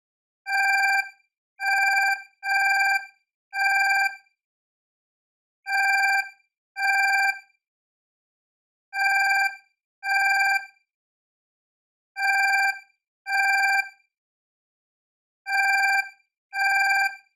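Alarm clock ringing in short rings of under a second each. The rings come mostly in pairs, the pairs repeating about every three seconds with silence between.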